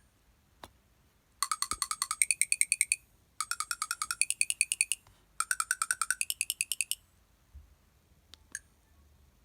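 Alcatel OT-660 flip phone's speaker playing a preloaded ringtone: three bursts of rapid electronic beeps, each about a second and a half long and climbing in pitch, with a few faint clicks before and after.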